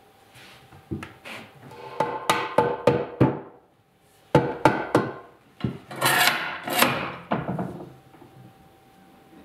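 A mallet knocking on wooden boards to seat an edge joint, in two quick runs of taps, about five and then three, each strike ringing with a woody tone. Then comes a longer scraping rub and clatter as pipe clamps are set across the boards.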